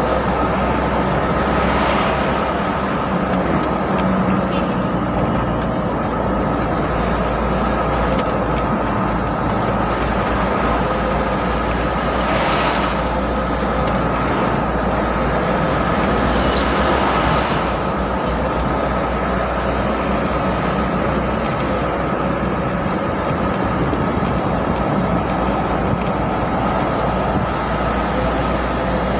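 Steady engine and road noise of a moving vehicle cruising along a highway, with a low hum and a thin steady whine throughout. Two brief rushes of hiss rise and fade about twelve and seventeen seconds in.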